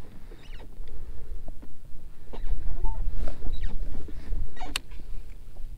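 Wind rumbling on the body-worn microphone, strongest through the middle, with scattered small clicks and knocks from handling the fishing gear and a sharper click near the end.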